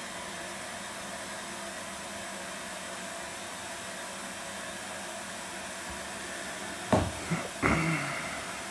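Washing machine running with a steady whooshing hum. Near the end, two short sharp sounds stand out above it, a little over half a second apart.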